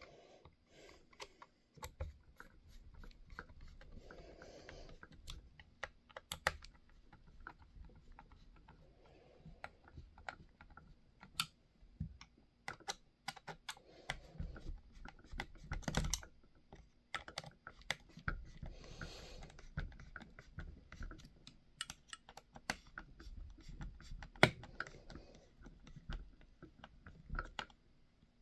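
Hand hex driver turning screws into an RC truck's plastic chassis and metal chassis brace, with irregular light clicks, ticks and small scrapes from the tool and the parts being handled.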